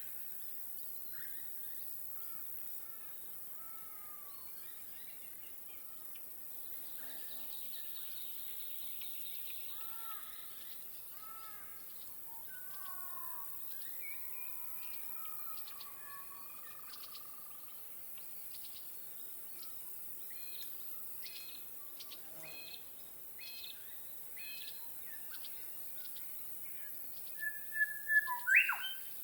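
Outdoor lake ambience: distant birds calling with soft downward-sliding notes and short chirps, over a faint steady hiss, with insects trilling. Near the end a nearer bird gives a loud series of clear whistled calls, the loudest sound.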